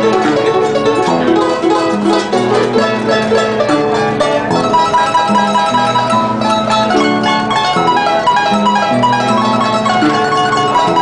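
A large wooden folk harp played by hand: a quick plucked melody over a steady alternating bass line.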